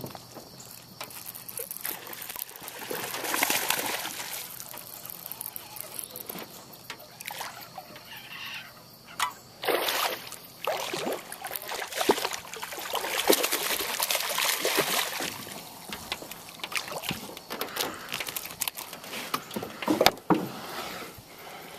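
Water splashing and sloshing in irregular swells, mixed with scattered knocks and clatter of handling in a small boat.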